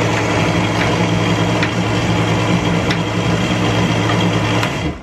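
Countertop blender with a glass jar running steadily, blending raw greens into a smooth green liquid; the motor hum cuts off suddenly near the end.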